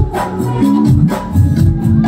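Live band music through a stage PA system: sustained keyboard and bass notes over a steady percussion beat.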